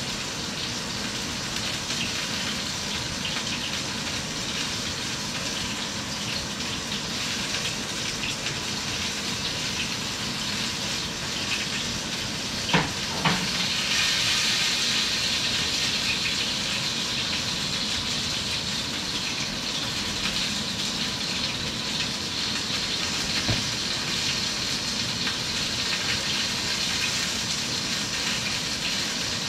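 A steady hiss of food cooking at the stove. Two knocks come about 13 seconds in, and after them the hiss gets louder and brighter.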